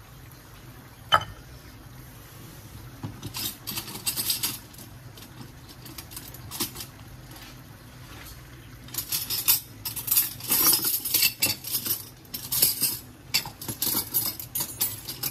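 Kitchen utensils and cookware being handled: a sharp click about a second in, then bursts of clinking and clattering a few seconds in and again, more densely, through the second half.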